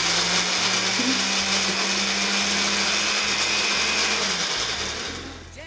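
Countertop blender motor running steadily, blending a mix of tomato, vinegar, oil and avocado; it is switched off near the end and winds down.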